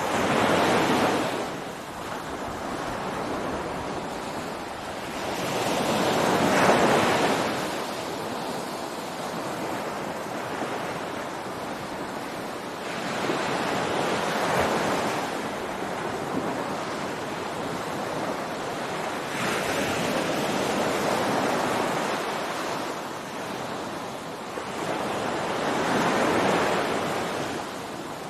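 Ocean waves breaking on a beach in a steady surf noise. It swells and falls back in a slow rhythm, five times, about once every six or seven seconds.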